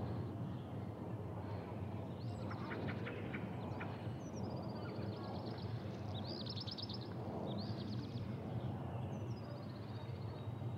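Steady low rumble of a jet airliner cruising high overhead, with several birds calling repeatedly over it in short high trills.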